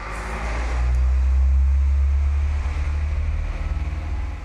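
A subwoofer in a sealed wooden box playing deep bass, a loud low rumble with a few short bass notes standing out above it.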